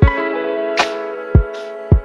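Background music: held plucked-string notes over a beat, with sharp drum hits at the start, about three-quarters of a second in, and twice more near the end.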